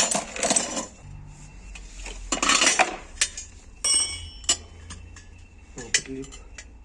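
Metal parts and tools clinking and clattering on a workshop bench in irregular bursts, with a short metallic ring about four seconds in.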